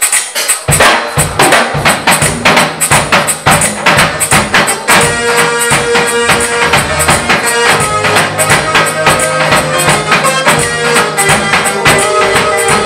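Church praise band playing upbeat music with a fast, even jingling percussion beat; bass and drums come in about a second in, and held melodic notes join about halfway through.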